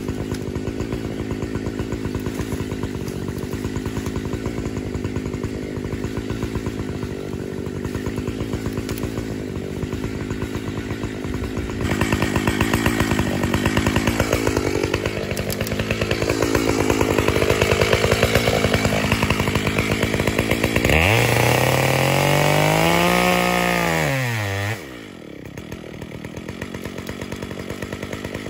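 Two-stroke chainsaw running at a steady idle. About twelve seconds in it gets louder and its pitch swings up and down for several seconds. Near the end the pitch rises high and falls again before it settles back to idle.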